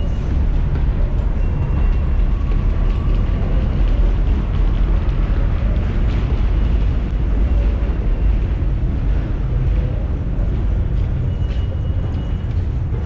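New York City subway train running on the elevated BMT Astoria Line, a loud steady rumble, with a faint high thin tone coming and going.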